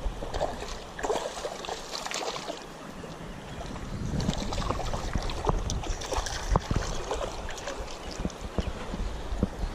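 Flowing shallow river water with irregular splashes and knocks as a hooked smallmouth bass is brought in, and wind buffeting the microphone.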